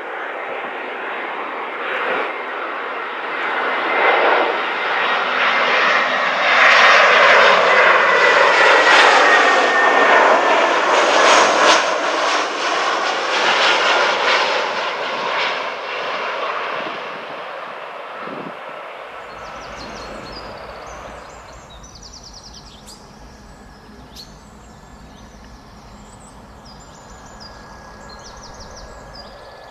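Airbus A320-family jet airliner in Germanwings livery passing low overhead on landing approach: engine noise swells to a peak with a slowly falling whine, then fades away. About two-thirds of the way in it gives way to birds chirping over a low steady hum.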